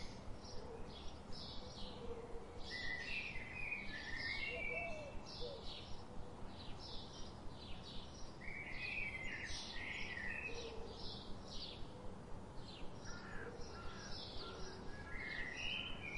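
Forest birdsong ambience: several small birds chirping in quick runs of short high notes and brief warbled phrases, over a steady low background hiss.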